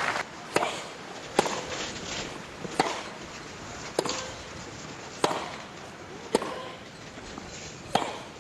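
A tennis rally: about seven sharp racket strikes on the ball, one every second or so.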